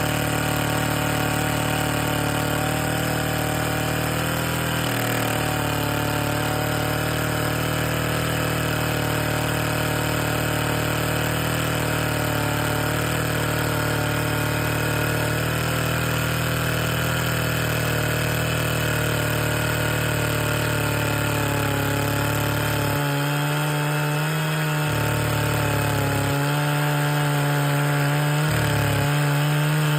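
Vintage Disston-Mercury G10 two-stroke chainsaw engine running steadily, its pitch wavering slightly, a little louder near the end.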